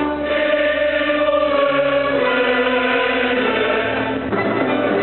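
Mixed choir and symphony orchestra performing together, holding long sustained chords that shift a couple of times.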